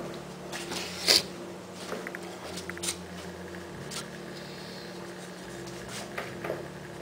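A few light knocks and clicks, the loudest about a second in, over a steady low electrical hum in the room.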